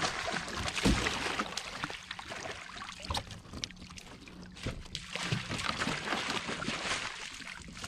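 Water splashing and dripping around a freshly landed bowfin, with scattered knocks and a few dull thumps against a plastic kayak hull as the fish is handled.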